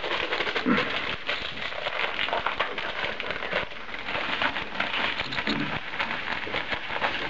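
Plastic bag of dry fishing groundbait crinkling as it is opened, and the crumbly bait pouring out of it into a plastic bucket, a continuous crackling rustle.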